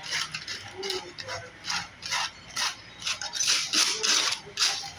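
Sheet of aluminum foil handled and pressed into shape by hand, crinkling in irregular bursts, loudest about three to four and a half seconds in.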